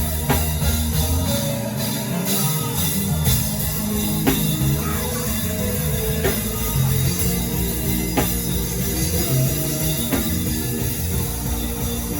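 Live worship band playing without vocals: a drum kit, bass and guitar, with a sharp drum hit about every two seconds over sustained low bass notes.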